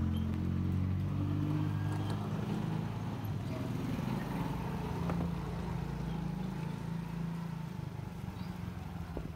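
Small motorcycle engine running at low speed close by as it rides slowly past, loudest in the first few seconds and easing off near the end.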